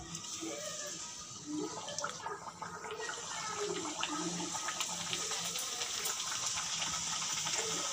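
Wheat-flour puris deep-frying in hot oil in a kadhai: a steady fizzing sizzle with fine crackles that builds over the first few seconds as the dough hits the oil.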